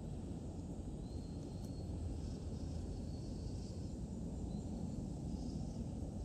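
Outdoor ambience: a steady low rumble with a few faint, thin high calls coming and going.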